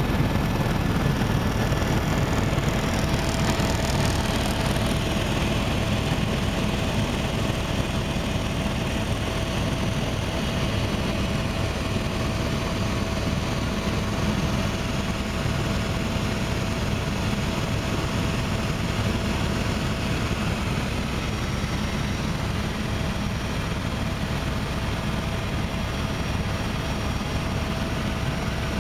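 Helicopter in flight heard from inside the cabin: a steady drone of engine and rotor, with a faint steady whine that starts about two seconds in.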